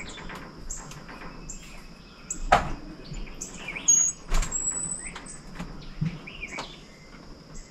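Songbirds chirping with short high calls and a rising whistle, over a steady high insect buzz, broken by a few sharp wooden knocks from framing work, the loudest about two and a half seconds in and another about four seconds in.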